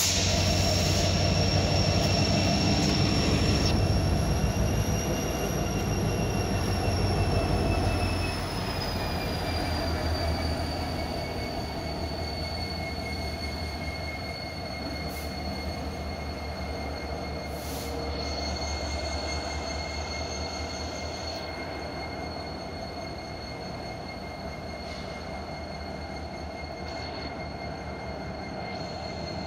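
Freight train rolling slowly past with its wheels squealing on the rail: a steady high-pitched squeal that sinks gradually in pitch, over a rumble that is loudest in the first eight seconds and then fades.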